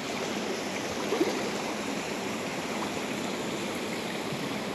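Fast, shallow river water running steadily over a boulder bed, heard from midstream.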